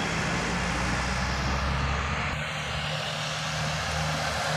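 Road traffic: a steady low hum of passing vehicle engines.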